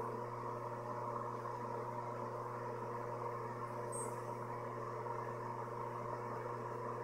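Steady low mechanical hum with an even hiss, with a brief high chirp about four seconds in.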